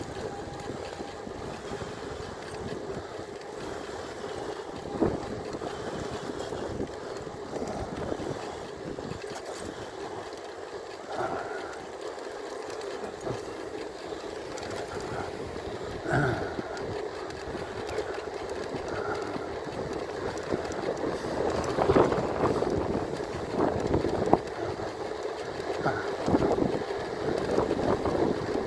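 E-bike riding along a tarmac road: a steady motor whine over tyre and wind noise, with scattered knocks and rattles from the bike going over bumps, more and louder in the second half.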